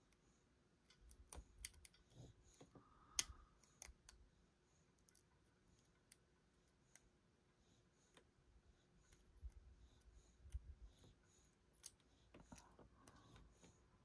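Faint, irregular clicks and ticks of a lock pick working the pins of a pin-tumbler lock held under tension, with one louder click about three seconds in and soft handling rumble.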